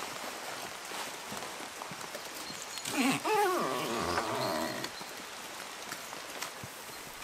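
A dog's short pitched whine or growl, about two seconds long starting about three seconds in, bending in pitch, over a steady patter of light rain.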